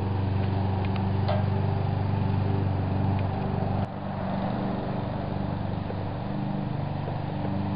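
Steady hum of an engine running, with an abrupt break about four seconds in, after which it carries on at a slightly different pitch. A few faint clicks come in the first second or so.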